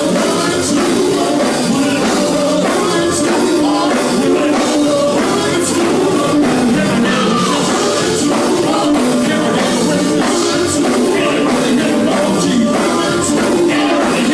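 Live gospel band playing loudly, with a steady drum beat and singing.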